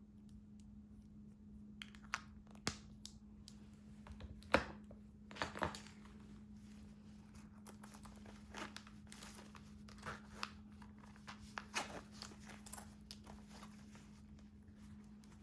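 Crinkling and tearing of handled wrapping material, with scattered sharp clicks and taps, over a steady low hum.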